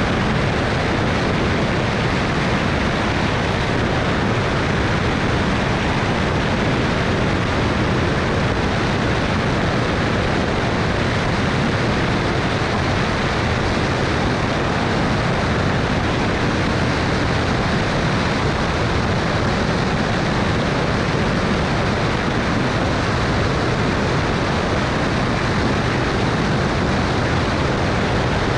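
Steady rush of wind and engine noise from a Cessna 210 Turbo Centurion in flight, a constant even roar with no distinct engine tone standing out.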